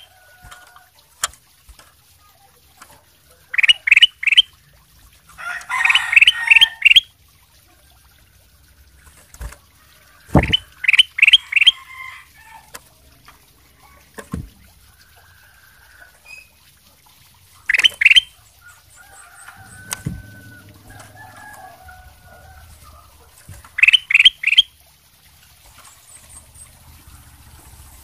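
Ruby-throated bulbul (kutilang emas) singing: short, loud phrases of three or four quick clear notes, repeated every few seconds, with softer scattered notes in between.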